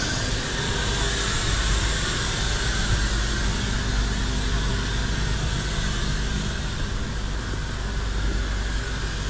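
Gardner Denver 75 hp air-cooled rotary screw air compressor running steadily: a constant low hum under a wide rushing hiss of air. The high hiss eases slightly about two-thirds of the way in.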